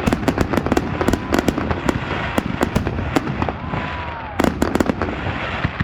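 A fireworks display with a rapid, dense run of crackling pops and bangs, many each second, and a short whistle about two-thirds of the way through.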